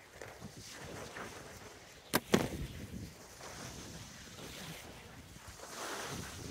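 Small waves washing on a stony shore with wind on the microphone, and two sharp clicks close together about two seconds in as fishing tackle is handled near the microphone.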